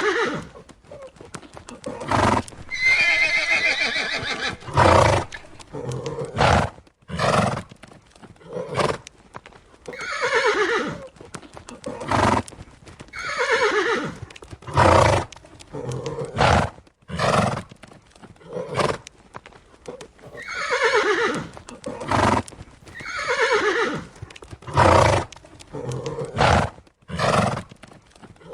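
Horses neighing over and over, each whinny a second or so long and falling in pitch, with short sharp sounds between the calls.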